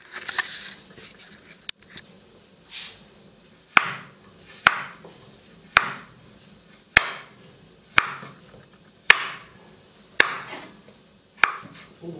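Kitchen knife slicing king oyster mushrooms on a wooden cutting board: sharp knocks of the blade on the board, about one a second, each with a short slicing hiss.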